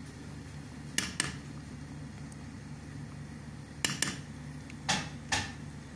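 A metal spoon clinking against the rim of a metal cooking pot, six short sharp taps in three quick pairs, as ketchup is knocked off the spoon into the sauce. A steady low hum runs underneath.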